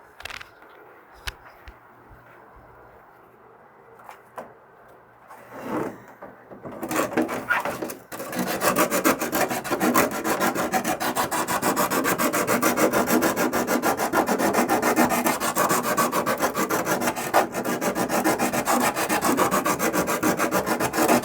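Small sanding drum worked by hand round the inside of a hole in plastic, rasping in rapid repeated strokes to enlarge the hole, which is too tight for a threaded fitting. A few light clicks and handling sounds come first, and the steady rasping starts about seven seconds in.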